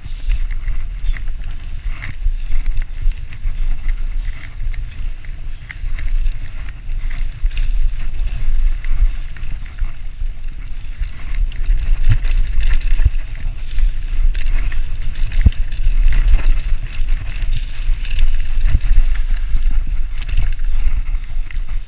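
Mountain bike riding a dirt forest singletrack: a steady rumble of wind buffeting the camera microphone, with tyre noise on dirt and scattered knocks and rattles as the bike goes over bumps.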